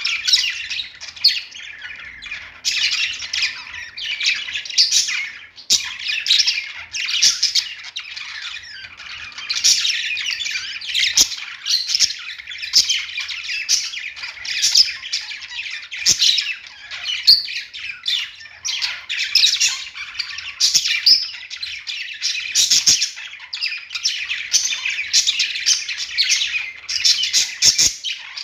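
Budgerigars chattering and warbling without pause: a dense, high-pitched stream of chirps, trills and short sharp notes.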